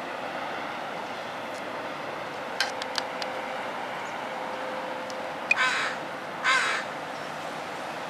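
A crow cawing twice, two harsh calls in quick succession a little over halfway through, over a steady outdoor background hum, with a few sharp clicks a few seconds earlier.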